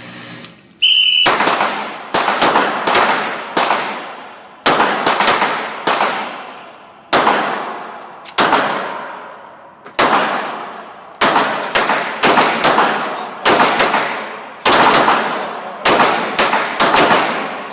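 A range whistle gives one short blast about a second in, then handguns open fire: a string of roughly thirty shots, about two a second with short pauses, each one trailing off in echo.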